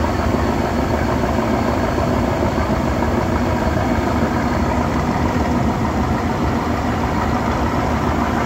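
Diesel engine of a river passenger launch running steadily: a loud, even drone with no change in pace.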